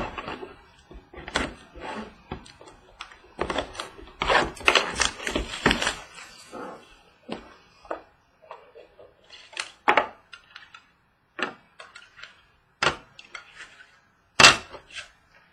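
A trading card box being opened and its cards handled: scattered taps and clicks of cardboard and plastic, with a stretch of rustling about four to six seconds in.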